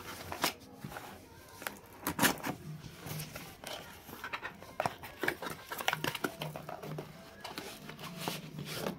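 Cardboard shipping box being cut open with a knife and its flaps pulled apart: irregular scraping, rustling and crackling of cardboard and packing tape, loudest about two seconds in.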